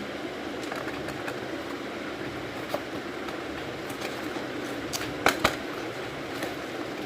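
Keyboard packaging being handled: a few short sharp clicks and taps, two loud ones close together about five seconds in, over a steady background hum.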